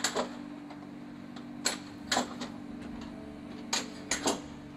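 A steady low mechanical hum with about half a dozen sharp clicks or knocks scattered through it.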